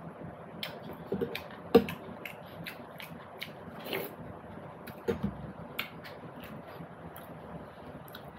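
Close-miked eating sounds: chewing jeri (jalebi) and puri, with irregular wet mouth clicks and lip smacks.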